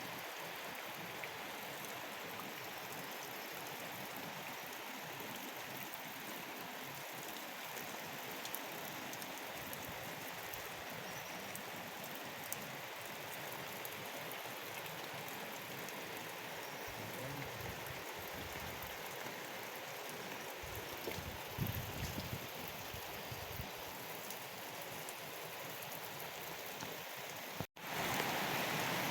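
Heavy rain falling, a steady even hiss. Near the end it cuts out for a moment and comes back louder.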